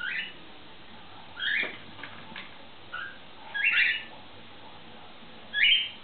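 Cockatiels giving five short, rising chirping calls, the loudest two in the middle and near the end, with a couple of faint clicks between them.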